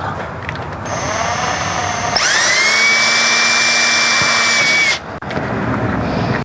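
Cordless drill boring holes into the soft plastic dash panel. A short run of the motor comes about a second in. Then it winds up to a higher steady whine for nearly three seconds and stops about five seconds in.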